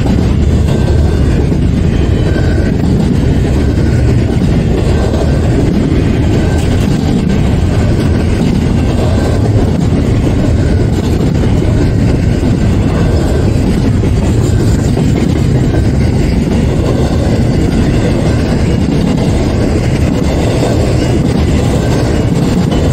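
BNSF intermodal freight train cars, double-stack container wells and then trailers on flatcars, rolling past at steady speed: a continuous low rumble of steel wheels on the rails.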